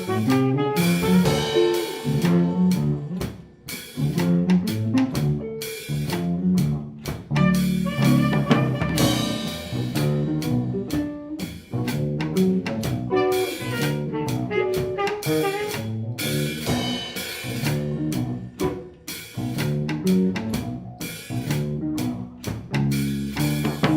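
Instrumental band playing continuous music in a rhythmic, jazz-style arrangement, with short repeated bass notes and regular percussive strokes.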